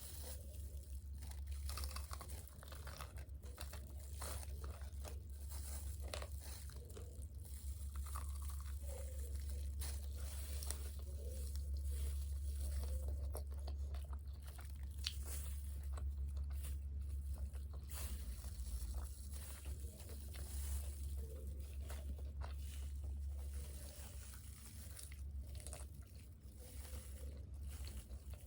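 Close-miked eating of crispy fried chicken and fries: irregular crunching bites and chewing throughout, over a steady low hum.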